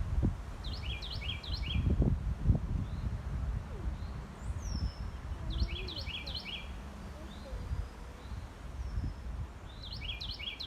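Carolina wren singing its rolling 'tea-kettle, tea-kettle, tea-kettle' song three times, each a quick run of repeated high notes lasting about a second and a half. A low rumble of background noise runs underneath, and a few faint chirps come between the songs.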